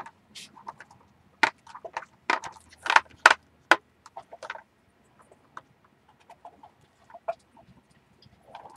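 Irregular short clicks and knocks, a cluster of louder ones in the first four seconds, then fainter scattered ones.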